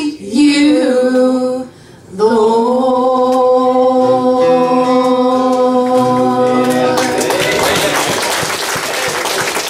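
Voices singing the closing line of a gospel song and ending on a long held chord, with a bass guitar underneath. About seven seconds in, audience applause takes over.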